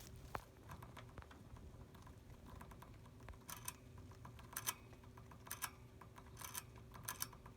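Computer keyboard keys clicking faintly in short quick clusters, about one cluster a second, starting around three and a half seconds in.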